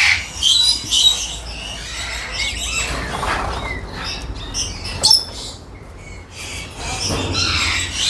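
Lories squawking and screeching, a string of harsh, overlapping calls, loudest right at the start and again about five seconds in.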